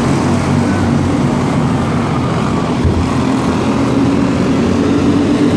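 Several small microstock race-car engines running at low speed on a dirt oval, a steady drone made of several low pitches with no revving.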